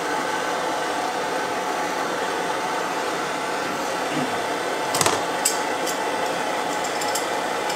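Hand-held gas torch burning steadily with a hissing flame as it heats a steel slug seated in a main bearing, so that the bearing's inner race expands. There is a sharp click about five seconds in and a few light ticks after it.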